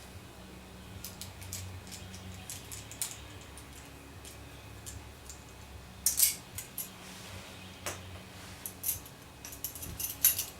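Light metallic clicks and clinks of hand work on motorcycle engine parts and tools, scattered through, with a louder clatter about six seconds in. A faint steady low hum runs underneath.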